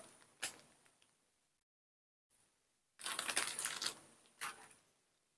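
A short click, then about a second of crinkly, crunching rustle and a brief rustle after it: close handling noise.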